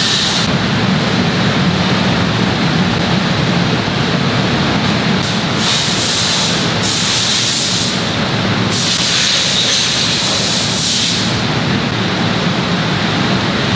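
Steady machinery noise in a factory moulding area, with several stretches of hissing air between about five and eleven seconds in.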